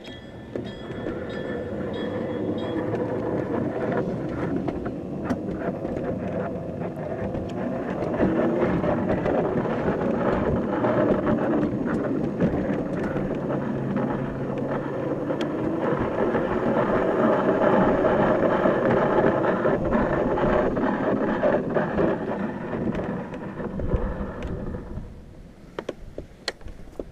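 Battery-electric 7½-inch gauge ride-on locomotive running along the track: steel wheels rolling on the rails with frequent clicks. It grows louder about eight seconds in and quietens near the end.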